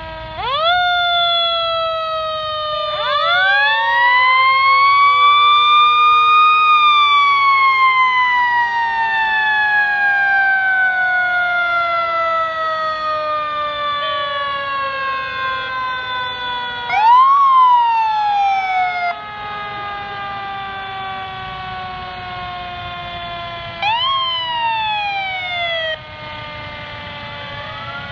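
Fire engine sirens wailing as the trucks pass in procession. Two wails rise one after the other at the start, and the loudest then winds slowly down in pitch over about ten seconds. Short rising-and-falling whoops follow twice later on.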